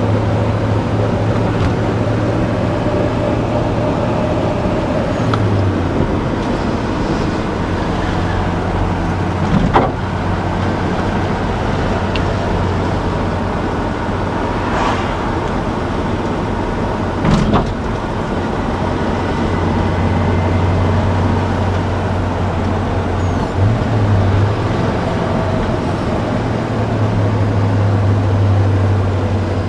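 1966 Pontiac GTO's 389 V8 running steadily as the car drives along, heard from inside the cabin, with three short knocks along the way.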